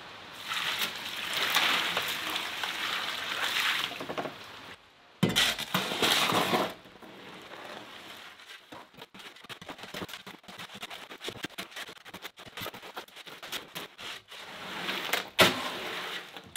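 Water poured from a bucket onto dry concrete mix in a plastic wheelbarrow, a steady splashing pour for a few seconds, then a second short, louder splash. After that a shovel churns the wet gravelly concrete, with many small irregular scrapes and clicks against the plastic tub.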